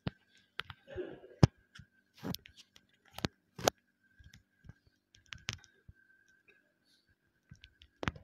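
Scattered sharp clicks, taps and rustles from a head-worn microphone being brushed and jostled as the wearer moves his hands over his face and clothing. A brief cluster of clicks comes near the end. A faint steady high hum runs underneath.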